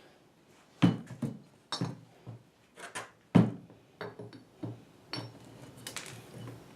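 Light metal knocks and clinks, about a dozen spread out over several seconds, as a locking hub assembly is handled and worked onto the axle splines. The loudest knocks come about a second in and about three and a half seconds in.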